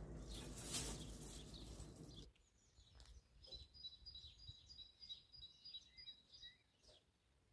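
Low outdoor rumble and hiss that cuts off abruptly about two seconds in. Then near quiet with small birds chirping and a short repeated high trill.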